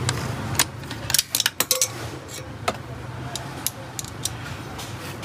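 Metal clicks and clinks from a TVS Apache RR310 six-speed gearbox as its gear cluster is turned by hand and shifted up a gear, the gears meshing and the selectors clicking into place. A low steady hum runs underneath.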